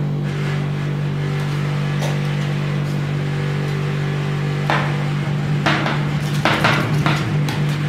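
Steel spatulas chopping and scraping ice cream on a rolled-ice-cream machine's steel cold plate. There are a few scattered taps at first, then quick, irregular metal clacks and scrapes from about halfway through. A steady low hum from the machine's refrigeration unit runs underneath.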